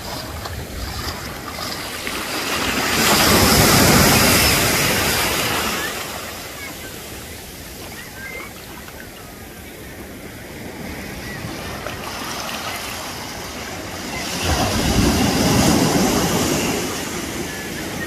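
Sea surf washing up a beach: a steady rush of water that swells twice, about three seconds in and again about fourteen seconds in, as waves break and run up the shore.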